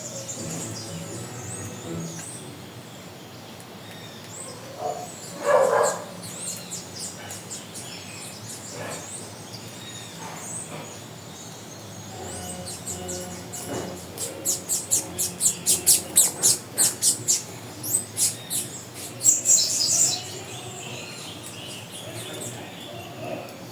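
Birds calling and singing: a short, lower-pitched call about five seconds in, then a rapid run of high chirps, about four a second, through the second half.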